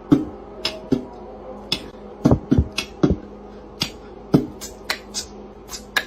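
A run of irregular sharp clicks and taps, some with a dull thud, about three to four a second, over a faint steady hum.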